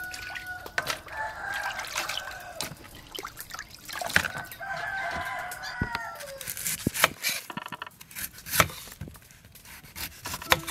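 A rooster crows a few times in the first half, the last crow falling in pitch at its end. A cleaver then chops through a pineapple on a wooden chopping block in a series of sharp knocks.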